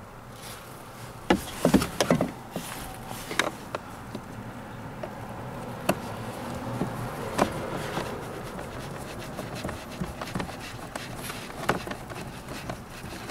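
Sharp clicks and knocks of a metal socket tool and hard plastic parts being handled around the heater blower housing under a car dashboard: a quick cluster about a second in, then single clicks every second or two over a low steady hiss.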